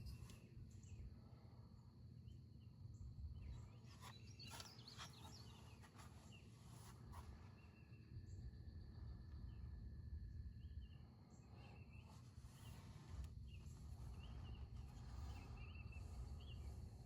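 Near silence: faint outdoor ambience with a steady low rumble and faint bird chirps repeating throughout. A few faint clicks come about four to seven seconds in.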